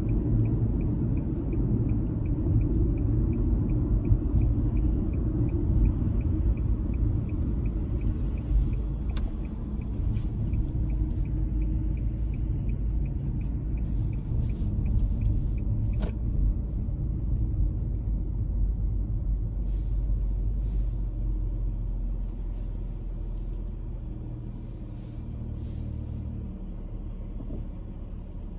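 A car driving along a road: a steady low rumble that eases off in the last few seconds. A faint, evenly spaced ticking runs through the first half and stops about halfway through.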